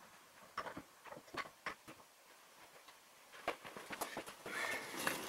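Faint rustling and light scattered clicks of hands handling a shop rag and tools, with a brief squeak near the end.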